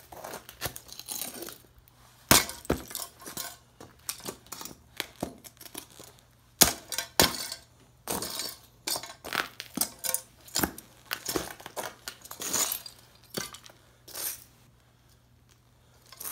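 Heavy boots stamping and grinding on the broken pieces of an old tube radio on a concrete floor: irregular cracking, crunching and clinking of smashed radio parts, dying away near the end.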